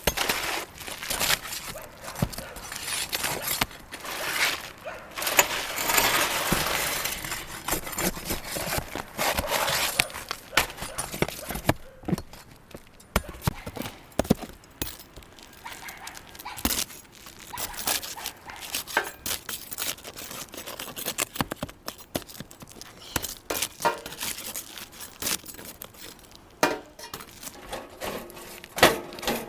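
Asphalt roof shingles being pried and torn up with hand tools: irregular scraping, cracking and knocks. The scraping is heaviest for the first ten seconds or so, followed by scattered knocks and clicks.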